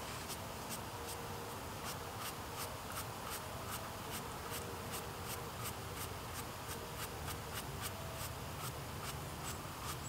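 A stiff-bristled mushroom brush scrubbing dirt off a freshly picked porcini mushroom, in short, quick strokes at about three a second.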